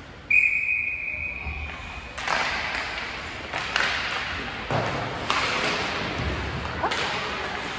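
A referee's whistle sounds one long, steady, high blast of about two seconds. Over the following seconds comes a series of sharp knocks and clacks on the rink.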